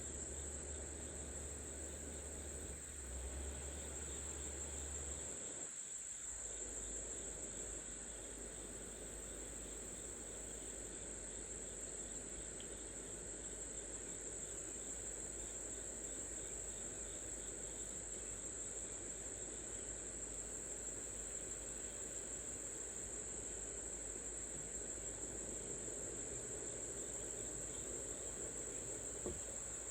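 Steady chorus of field insects, an unbroken high-pitched trill. A low rumble under it stops about five seconds in.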